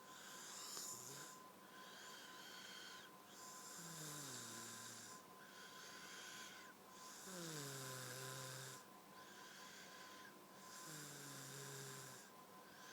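A woman snoring in her sleep while she has a cold. Each breath is a hissing rasp, and three times a whistling tone falls in pitch through the snore.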